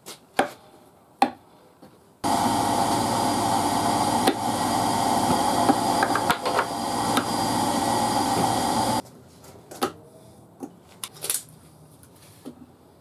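A power tool runs steadily for about seven seconds, starting and stopping abruptly, between quieter stretches of light wooden clicks and knocks as cut wooden discs are handled and stacked on a workbench.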